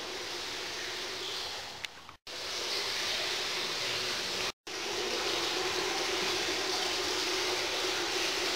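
Steady hiss of indoor room tone with a faint low hum, as picked up by the recording microphone. It drops out to silence twice, briefly, where the shots are cut.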